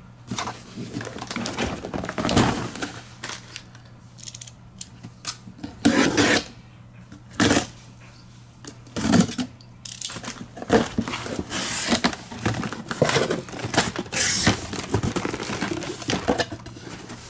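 A cardboard Hot Wheels case being opened and the carded die-cast cars taken out: cardboard and tape tearing, and the plastic blister packs clattering against each other in irregular bursts.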